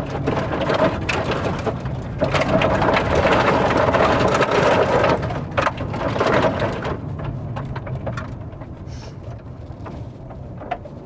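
Fiat Argo Trekking driven over a dirt track: tyres crunching over loose ground and gravel rattling against the underbody in a dense patter, over the steady hum of the 1.3 FireFly engine. The rattling is loudest from about two to five seconds in, then eases off.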